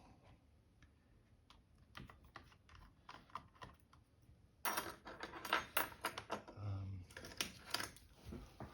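Dell Latitude E7440 laptop keyboard being handled and worked loose, keys and plastic clattering. Scattered light clicks at first, then from about halfway a denser, louder run of clicks.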